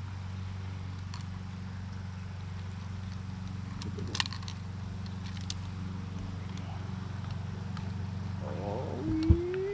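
Boat motor running steadily with a low, even hum, with a few small clicks and knocks from gear in the boat. Near the end a short rising whine and a sharp knock.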